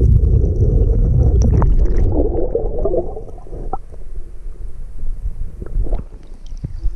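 Creek water gurgling and rumbling, heard muffled through a submerged waterproof camera housing, with a few light clicks. It is loudest for the first three seconds, then quieter as the camera comes up to the surface.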